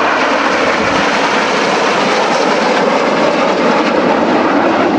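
BAE Hawk T1 jets flying in display formation: a loud, steady jet roar, a rushing noise without a clear pitch.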